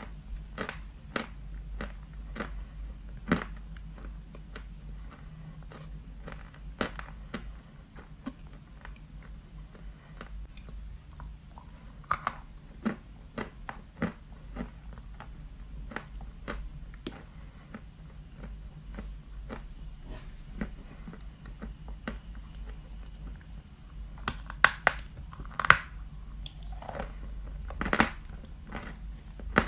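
Biting and chewing a lump of white chalk: a steady run of sharp, crumbly crunches, with a few louder bites near the end.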